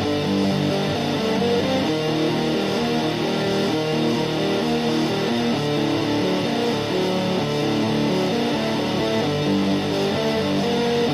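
Atmospheric metal music: guitars and layered keyboards playing a slow, steady melody in sustained notes.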